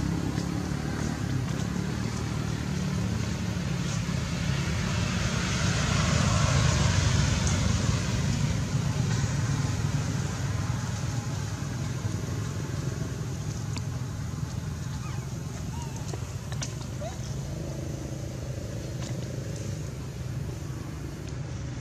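Steady low rumbling background noise. It swells for a few seconds about six seconds in, with a few faint clicks.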